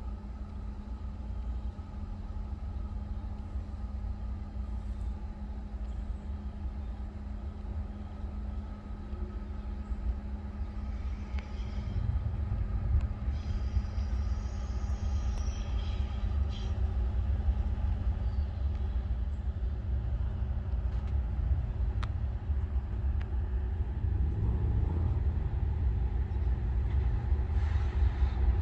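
Norfolk Southern freight train's diesel locomotives running: a steady low rumble under a held hum, getting louder about halfway through and again near the end.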